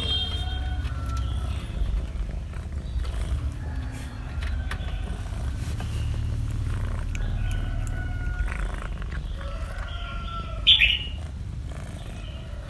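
Cats meowing faintly several times over a steady low rumble, with one short, loud, high-pitched call near the end.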